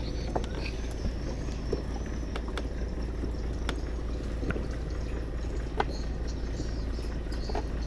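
Water lapping against a small moored wooden boat, over a steady low rumble, with scattered light clicks and knocks.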